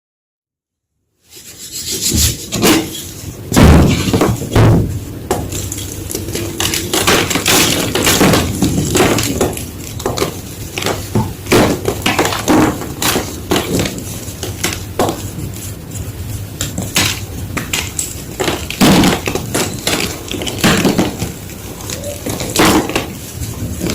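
Fresh gym chalk being crunched and crushed: a dense, irregular run of crackling crunches that starts about a second in.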